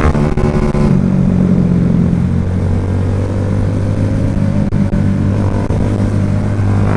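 Motorcycle engine heard from on board as it is ridden: the revs drop at the very start, then it runs steadily, the pitch climbing slowly as it picks up speed again.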